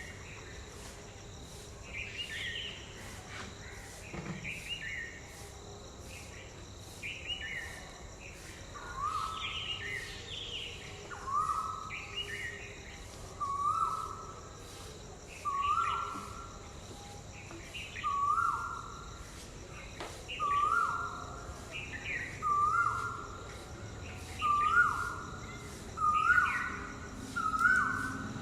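Asian koel (koyal) calling a repeated whistled note, the calls coming closer together, higher in pitch and louder toward the end. Higher falling bird notes sound between them, over a faint fast ticking of insects.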